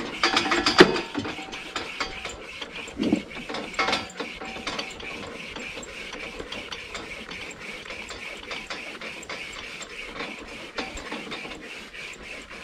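A wire saw rasping back and forth through the tip of a cow's horn in quick, even strokes, more ragged and louder in the first second.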